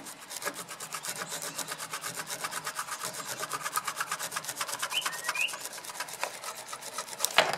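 A jigsaw blade taped to a stick, hand-sawing back and forth through wood in rapid, even strokes, with a sharp knock near the end.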